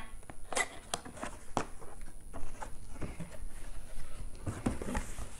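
Cardboard box being handled and its top flaps pulled open: irregular light taps, scrapes and rustles of cardboard.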